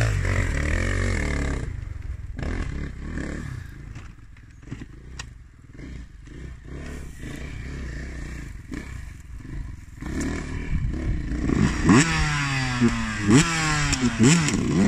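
Enduro motorcycle engine revving hard on a steep hill climb, loud at first and then fading away. From about eleven seconds in, an engine is loud again with a quick run of rising revs, the throttle blipped over and over.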